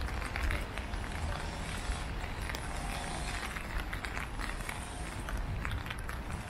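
City street ambience: footsteps on pavement, with short irregular steps over a low steady rumble of urban background noise.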